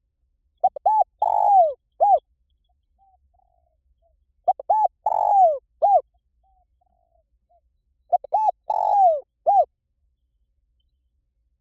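Spotted dove cooing: three phrases a few seconds apart, each a few short coos around one long, falling coo.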